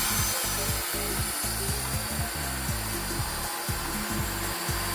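Pool pump running with a steady hiss of motor and water flow, over background music with a low bass line.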